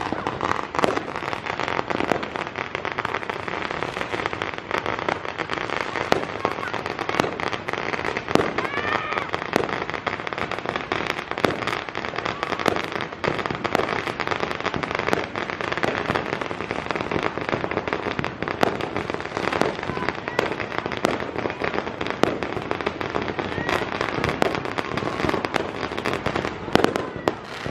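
Aerial fireworks going off overhead: a dense, unbroken run of crackling pops and bangs, with a few louder bangs standing out, including one near the end.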